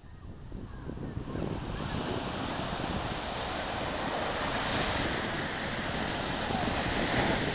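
Ocean surf washing in, with wind buffeting the microphone. It swells up over the first couple of seconds, then holds steady.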